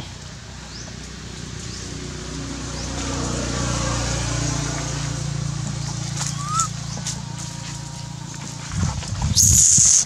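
A macaque gives a loud, shrill scream near the end that cuts off abruptly, after a low rumble swells and fades in the background.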